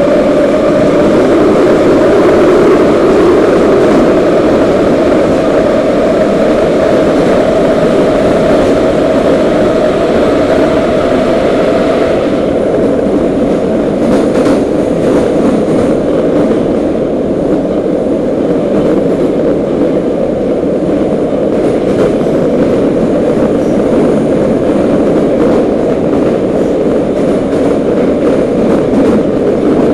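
Moscow metro train running through a tunnel, heard from inside the car as a loud, steady rumble of wheels and motors. About twelve seconds in, the hissier upper part of the noise drops away while the rumble carries on.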